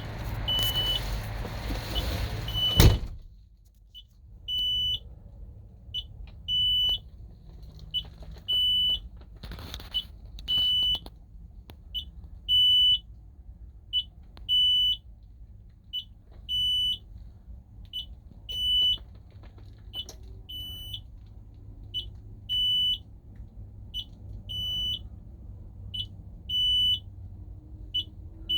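Peterbilt truck's cab warning beeper sounding over and over, a high beep with longer tones about every two seconds and short chirps between. About three seconds in, a door thud cuts off the outside noise.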